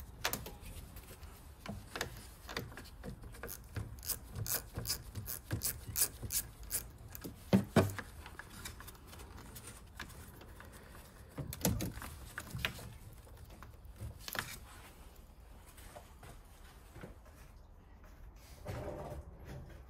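Socket ratchet working the nut of a car battery's positive terminal clamp loose: a run of quick metallic clicks, about three a second, for several seconds, then a few separate knocks and rubbing as the clamp is worked on the post.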